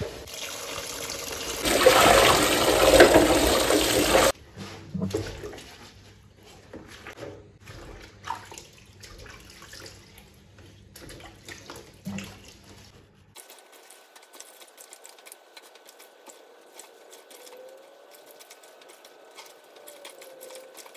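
Water running hard into a plastic basin for about four seconds, then hands swishing, rubbing and squeezing pumpkin leaves in the water, with small splashes and drips. The leaves are being washed to get the soil off them.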